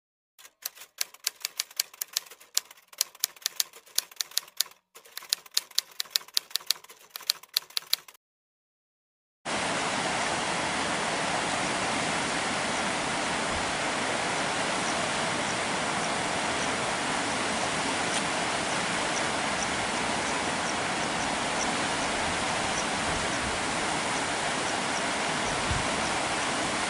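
Rapid typewriter-style key clicking for about eight seconds, then a moment of silence, then the steady rush of a fast-flowing muddy river.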